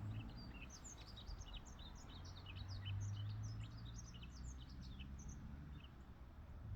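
Yellow-throated bunting singing: a quick twittering run of short high notes that stops about six seconds in, over a steady low hum.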